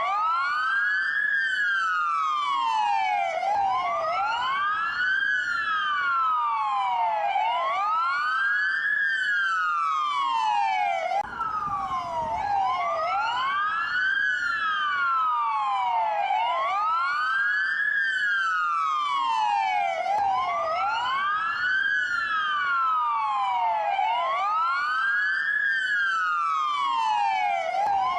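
Dual wail police siren: two siren tones sounding together, slightly out of step, each sweeping slowly up and down about once every four seconds.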